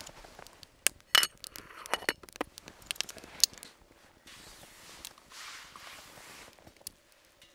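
Metal cookware and utensils clinking and knocking as a small frying pan with cutlery in it is handled and set down, with a few sharp clinks that ring briefly. About four seconds in the clinking gives way to a couple of seconds of soft rustling.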